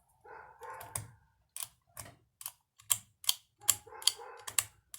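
A run of sharp clicks, about three a second, starting a second and a half in, with a fainter pitched sound under it at the start and again near the end.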